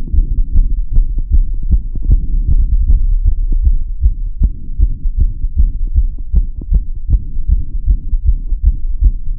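A human heartbeat heard through a stethoscope: a quick, steady run of low, muffled thumps with short clicks on top.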